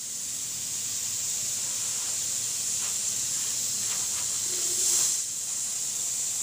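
Air-driven fluid extractor hissing steadily as its hose sucks old power steering fluid out of the car's reservoir, swelling briefly about five seconds in.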